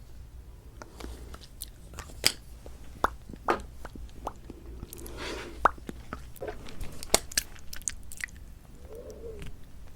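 Close-miked lipstick application: lips smacking and pressing together, with scattered sharp clicks and a short stretch of soft rubbing about halfway through.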